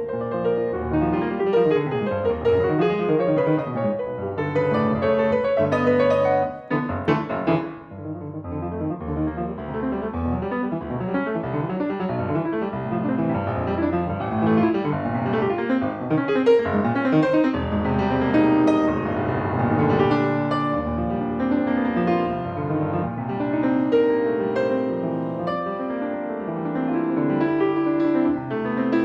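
Solo piano playing a fast, dense toccata passage of many quick repeated notes, with a short break about seven seconds in before the running figures resume.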